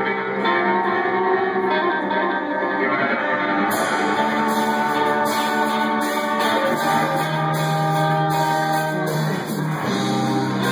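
Live rock band playing, electric guitars ringing out with sustained chords; about four seconds in, drums and cymbals come in with a steady beat.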